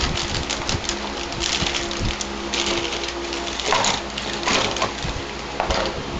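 Plastic packaging crinkling and rustling in irregular crackles as Play-Doh cans are handled, over a faint steady hum.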